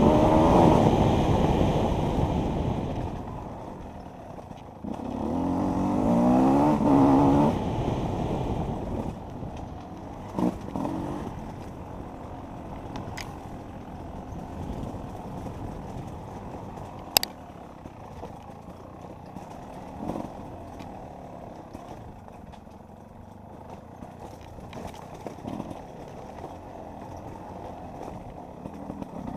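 Enduro motorcycle engine revving up hard twice in the first eight seconds, then running low and quiet, with scattered knocks and clatter from the bike over rough ground, one sharp click standing out past the middle.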